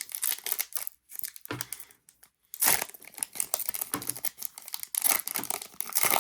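Plastic trading-card pack wrapper being crinkled and torn open in irregular bursts, with two short pauses in the first couple of seconds and denser crinkling from about two and a half seconds in.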